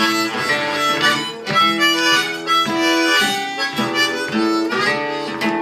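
Blues harmonica playing held notes in a rhythmic line, over a strummed acoustic guitar.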